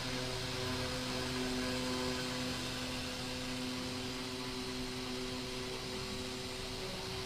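CNC milling-engraving machine cutting, its spindle motor running steadily: a constant hum of several steady tones over an even hiss.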